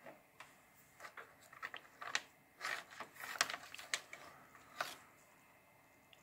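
Handling noise as a USB cable and its plug are picked up and moved about by hand: a run of irregular small clicks, taps and rustles, loudest about three and a half seconds in, dying away near the end.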